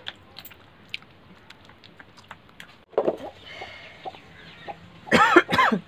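A chicken gives two loud squawking clucks near the end, after a shorter sound about three seconds in, with faint scattered clicks in between.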